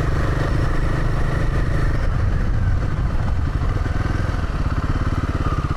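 Royal Enfield Himalayan 450's single-cylinder engine running under the rider while crawling over rough, rocky ground. About two seconds in it eases off to a lower, evenly pulsing run.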